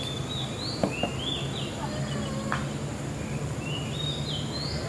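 A bird singing short phrases of high notes that step upward in pitch, repeated several times, over a steady low background hum. A few sharp clicks come around one and two and a half seconds in.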